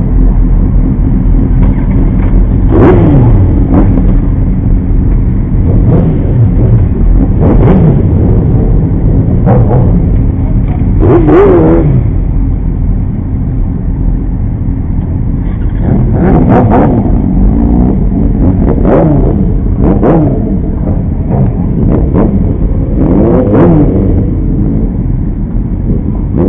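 Several sport-motorcycle engines idling together with a steady drone. They are revved roughly ten times in short throttle blips, each rising and falling in pitch.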